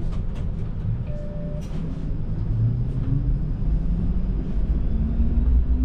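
Streetcar running, heard from inside the car: a steady low rumble with a few clicks in the first couple of seconds, and a faint motor whine rising in pitch as it picks up speed.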